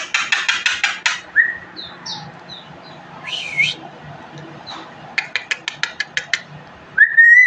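A songbird singing a varied phrase: quick runs of dry clicks, short whistled chirps, and a held whistle near the end.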